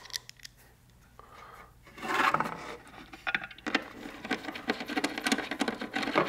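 Bolts being screwed down through a plastic sonar-display cradle into its mounting base. There is a scrape about two seconds in, then rapid, irregular scratchy clicking and rubbing as the bolts are turned.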